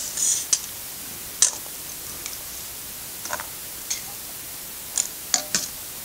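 A metal spoon clinking and scraping against metal bowls as thick bean stew is ladled out, a few scattered light clicks.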